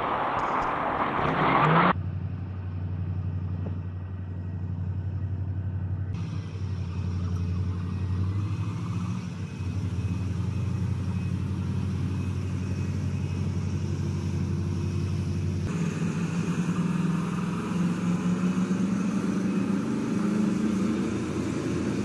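Caterpillar mining haul truck's large diesel engine running with a steady low drone. Before it, about two seconds of loud rushing noise cut off suddenly.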